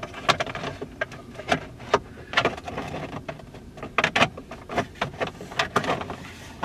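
Irregular sharp clicks, knocks and scrapes of hard plastic car interior trim, as a centre-console storage pocket is handled and pushed back into the dash.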